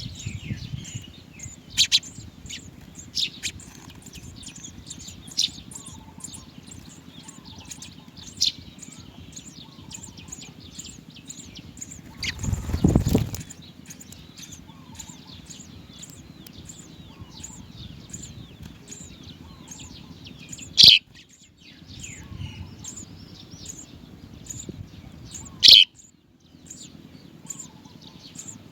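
House sparrows chirping in short scattered calls. A brief low rush of noise comes about halfway through, and two sharp loud sounds come near the end.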